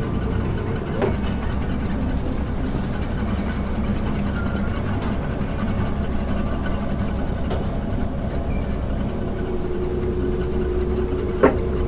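Engine of a truck-mounted hydraulic hive loader running steadily at a low idle. About nine seconds in a steadier, higher hum joins it as the loader's control levers are worked, and a single sharp click sounds just before the end.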